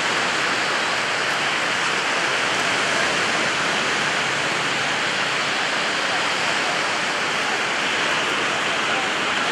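Steady, even rushing noise with no distinct events, like surf or wind in the open air.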